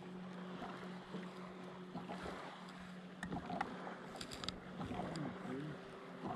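Boat motor running with a steady low hum, over a soft wash of water and wind, with a few light clicks between about three and four and a half seconds in.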